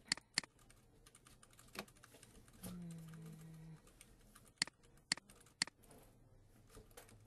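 Scattered clicks of a computer mouse and keyboard: half a dozen sharp, loud clicks, some in quick pairs, among many faint ticks.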